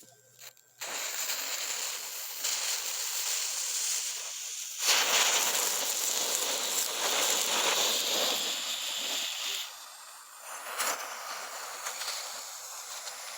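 Police-car novelty firework burning with a steady spraying hiss. It starts about a second in, gets louder about five seconds in and drops briefly near ten seconds before carrying on.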